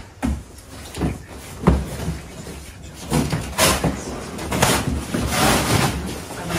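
A large cardboard bicycle box being pulled open and torn apart. A few sharp thumps of the cardboard panels come in the first two seconds, then a longer stretch of scraping and rustling cardboard.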